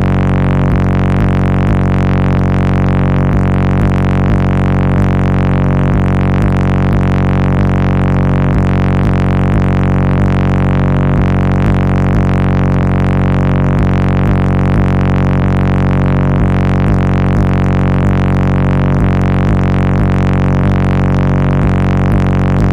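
A car-audio wall of large subwoofers playing bass-heavy music very loud inside the vehicle cabin, with a steady beat.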